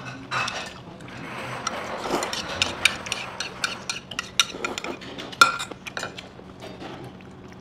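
Spoons and chopsticks clinking and scraping against stainless-steel bowls during a meal: a scatter of sharp clinks, the loudest about five and a half seconds in.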